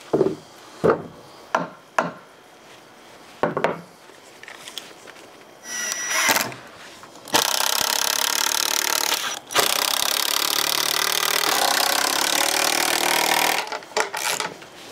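Pine boards knocked and set into place a few times, then a cordless drill drives screws into the wood for about six seconds, with a brief break partway through; a few more wooden knocks near the end.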